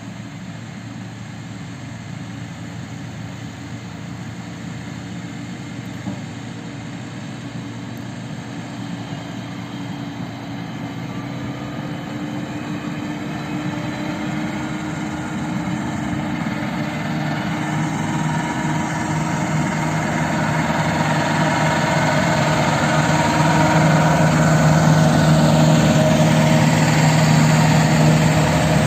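A heavy diesel engine running steadily, growing gradually louder over the whole stretch.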